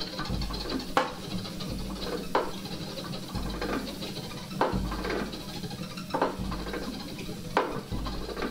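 Sparse experimental ensemble music from an acoustic quartet of piano, acoustic guitar, cello and drums: a sharp struck note about every second and a half, each followed by a short falling slide, over a deep low note that repeats at the same pace and a steady hum.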